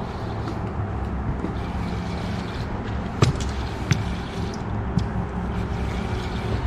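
Boat motor running steadily with water noise around the hull, and three sharp knocks on the boat about three, four and five seconds in, the first the loudest.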